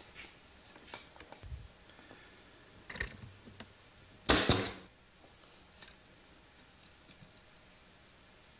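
Nail gun shooting nails into mahogany crown molding: a few short, sharp shots, the loudest a little after four seconds in, with fainter clicks of handling between.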